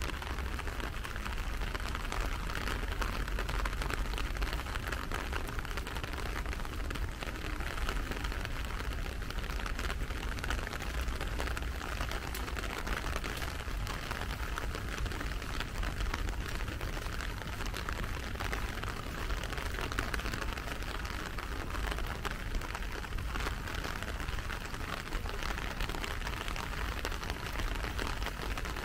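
Steady rain falling, a continuous patter of many small drop ticks over a low rumble.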